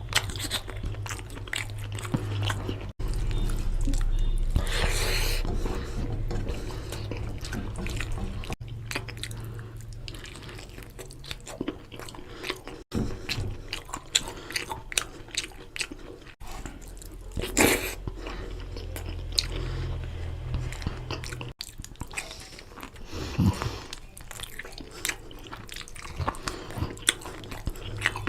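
Close-up chewing and biting of mutton curry with rice, with many short wet clicks and smacks from the mouth, over a low steady hum.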